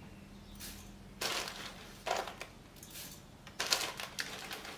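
Rolled oats being scooped with a metal spoon from a plastic bag and tipped into a ceramic bowl: a few short bursts of bag rustling and dry flakes falling into the bowl.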